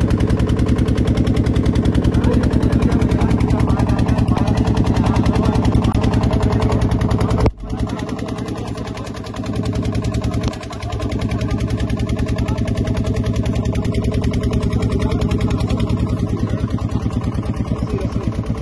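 Motorboat engine running steadily close by, a fast even pulse with a low hum. It cuts out sharply about seven and a half seconds in and then runs on slightly quieter.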